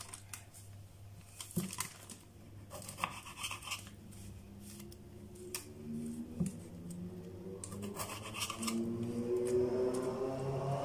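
Small kitchen knife slicing cherry tomatoes on a wooden cutting board, with scattered short taps and scrapes of the blade on the board. Over the second half a faint set of steady tones slowly rises and grows louder.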